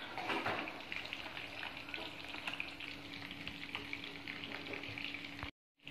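Faint, continuous crackle of chicken lollipops frying, with a steady low hum underneath; the sound cuts off abruptly near the end.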